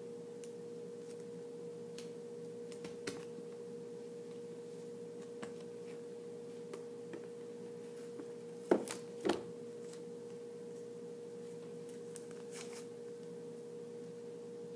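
A steady electrical hum with a few faint scattered clicks, and two sharper knocks about nine seconds in.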